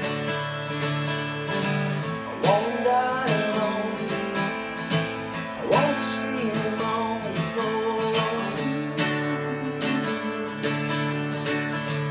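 Acoustic guitar strummed in a steady song, with a man singing over it from a couple of seconds in until about three-quarters of the way through.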